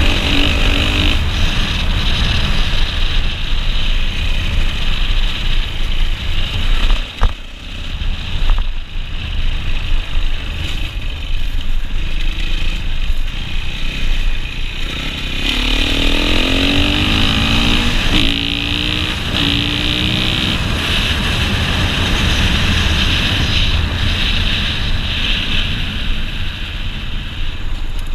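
Dirt bike engine running under way, heard from the rider's helmet camera. About halfway through, the revs climb in several short rising runs in quick succession as the bike accelerates up through the gears.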